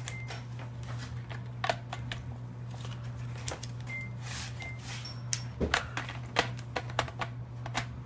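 Irregular clicks and taps of a laptop hard drive caddy being set into its bay and pushed into place, with a small screwdriver knocking against the plastic case; the clicks come thickest in the second half. A steady low hum runs underneath.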